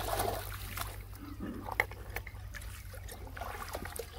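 Scattered light clicks and knocks over a faint trickle of water.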